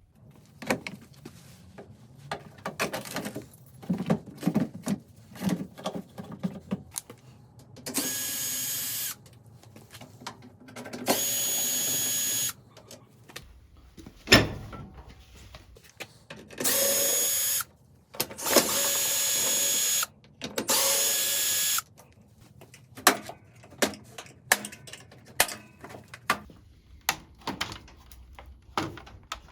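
A cordless power screwdriver runs in five short bursts of about a second each, amid many sharp clicks and knocks of screws, tools and metal panels being handled, as the washing machine is taken apart.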